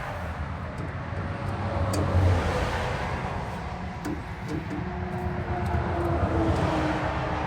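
Road vehicles passing by, a steady rushing noise with a low rumble that swells twice, about two seconds in and again around six seconds in.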